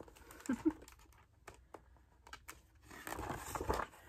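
Page of a paper picture book being turned and handled: faint paper rustling and light taps, with a longer rustle about three seconds in.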